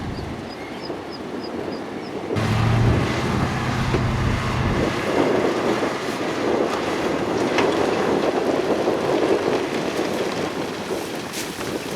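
Heavy earthmoving machinery at work on rock and dirt. A diesel engine hums loudly from about two seconds in, and after about five seconds it gives way to a long, even rumble of rock and dirt moving.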